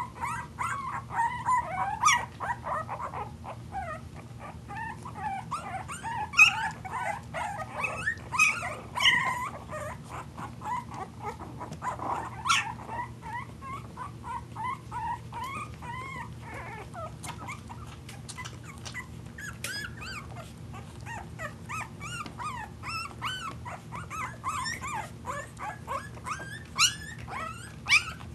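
Boston terrier puppies, a young litter, squeaking and whimpering almost without pause as they crawl over and wrestle with each other, with a few louder yelps standing out, about two seconds in, around six to nine seconds, near twelve and near the end.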